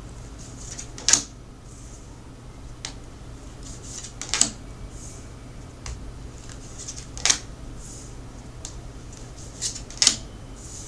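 Tarot cards laid out one at a time on a table: four sharp card slaps about three seconds apart, with fainter ticks and soft rustles of cards between them.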